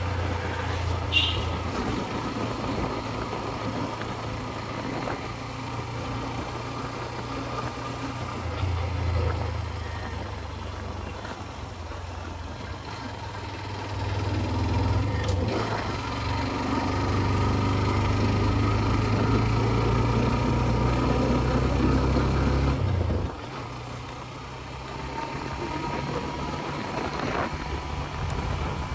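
Scooter engine running while riding, likely the single-cylinder engine of a TVS Ntorq 125. It gets louder about halfway through, holds steady for several seconds, then drops off suddenly as the throttle closes.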